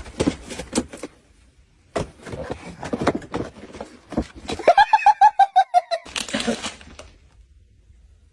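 A person laughing: a quick, loud run of high "ha-ha-ha" pulses about five seconds in, with scattered clicks and rustles before it.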